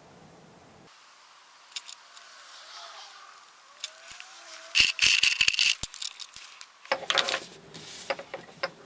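Plastic marker pens clattering together in a dense burst of rattling clicks for about two seconds, halfway through, followed by lighter clicks and rustling as a marker is handled.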